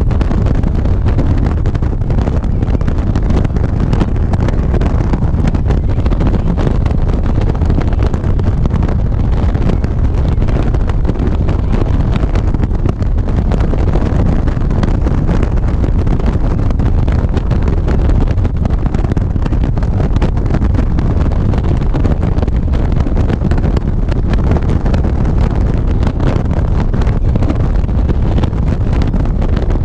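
Wind buffeting the microphone of a camera mounted on a motorcycle at road speed, mixed with the bike's running noise. It makes a steady, loud, low rumble that does not change.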